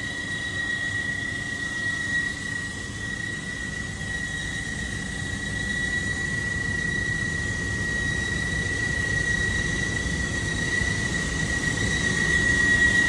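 Exhaust fan running: a steady rumble of moving air with a constant high-pitched whine over it, growing slightly louder toward the end.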